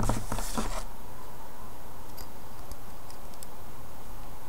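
Faint handling noises of polymer clay pieces and a blade on a tabletop: a cluster of small clicks and rustles at the start, then a few light ticks, over a steady background hiss.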